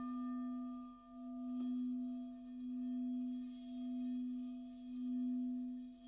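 Struck singing bowl ringing on: a steady low hum with fainter higher overtones, swelling and fading about once a second.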